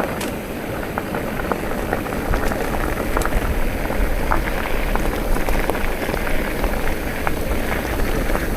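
Wind buffeting the microphone over the rolling noise of a mountain bike, with many small clicks and crunches from tyres and drivetrain on a rough gravel forest road.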